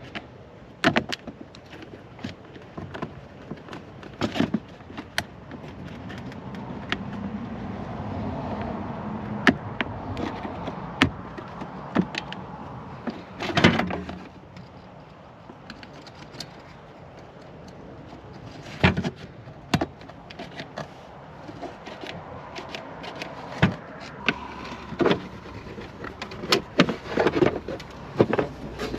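Scattered clicks, knocks and scrapes of hand work on a car's dashboard during a radio installation, over a low steady background noise, with a louder clatter about halfway through.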